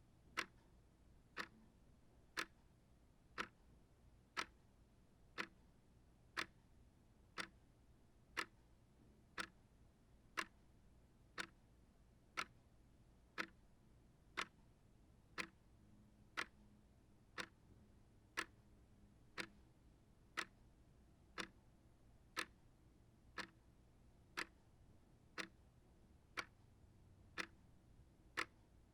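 Small shelf clock ticking steadily, about one sharp tick a second.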